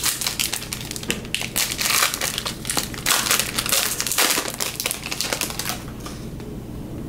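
Metallic foil trading-card pack wrapper crinkling as it is torn open and handled, dying down near the end.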